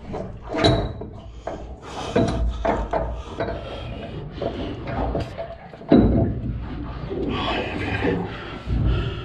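A heavy bronze raw water pump being worked by hand into its mounting on a Detroit 60 Series marine diesel: irregular clunks, knocks and scraping of metal against metal as it is lined up. The sharpest knock comes about six seconds in.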